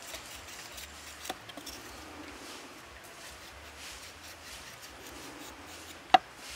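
A chef's knife shaving thin slices off a raw carrot held in the hand, making soft scraping cuts. There is a small click about a second in and a single sharp knock near the end.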